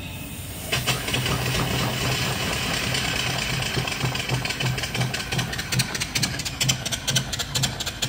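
Steam hissing through the line as the boiler's steam valve is opened about a second in, then a single-cylinder steam engine (3-inch bore, 4-inch stroke) starting to turn over. Its exhaust beats grow into a steady, quickening chuff as it runs slowly on low steam.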